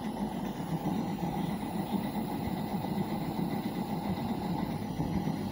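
Butane-fired live-steam model locomotive running: a steady rushing roar from the gas burner together with the engine and its feed pumps working.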